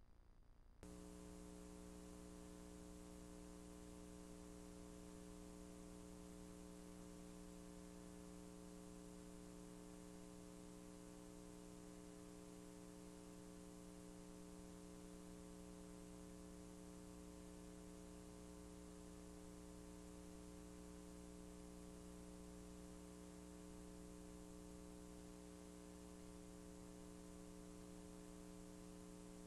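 Faint, steady electrical mains hum with a layer of hiss, switching on abruptly about a second in and not changing after that.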